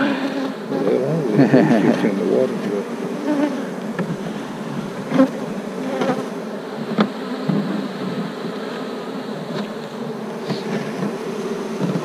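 Honeybees buzzing around an opened hive, with individual bees flying close past the microphone so the buzz wavers in pitch during the first few seconds. A few sharp clicks of a metal hive tool against the hive sound in the second half.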